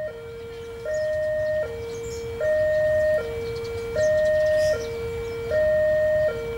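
Railway level-crossing warning siren sounding an electronic two-tone alarm, alternating steadily between a higher and a lower note about every 0.8 seconds, the higher note louder, warning that a train is approaching. A low rumble runs underneath.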